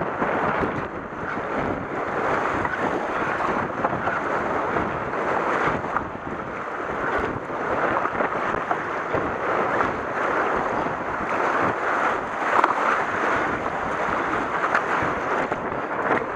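River water rushing over shallow rapids around a K1 racing kayak, with the splash of paddle strokes and wind on the microphone.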